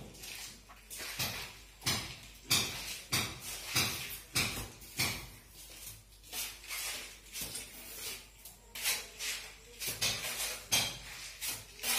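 An irregular run of short clicks and clatters, a few a second, like small hard objects being knocked or handled.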